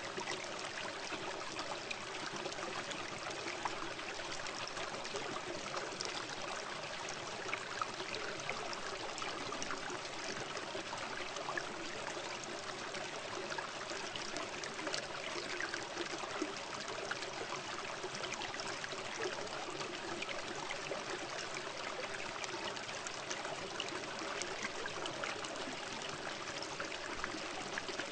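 Steady trickling, running water: a continuous rush dotted with many small splashes, with no let-up.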